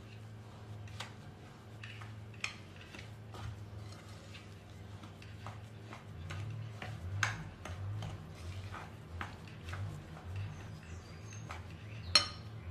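Hands mixing crumbly cocoa semolina dough in a glass bowl: irregular soft scratches and light clicks against the glass, with one sharper clink near the end.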